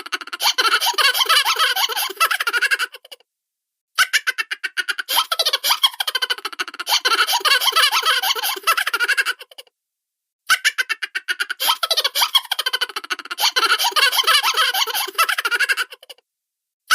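Cartoon-style laughter and chuckles: quick, high-pitched pulses of laughing. The same laugh plays three times, with a short silence after each.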